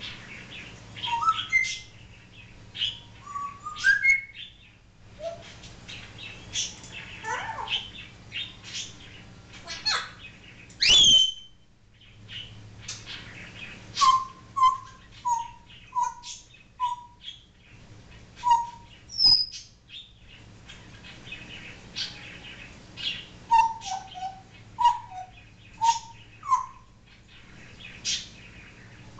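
African grey parrot clicking, chirping and whistling, with one loud rising whistle about eleven seconds in and runs of short repeated calls later on.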